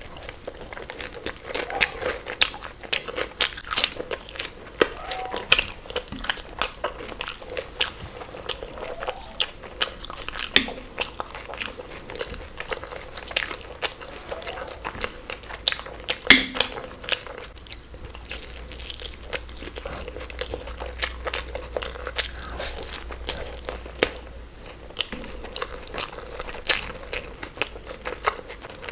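Close-miked ASMR eating: crunchy bites and chewing, a dense run of short crisp crunches.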